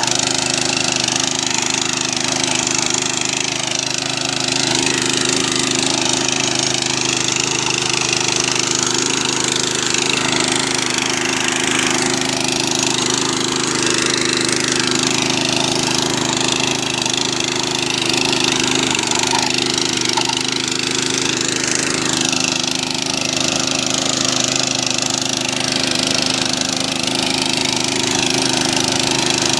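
Tiger GT800 mini power tiller's 208 cc single-cylinder four-stroke OHV engine running steadily under load while pulling a plough blade through soil.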